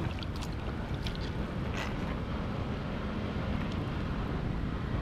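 Low, steady rumble of wind buffeting the microphone, with a few small splashes of hands moving in shallow water in the first two seconds.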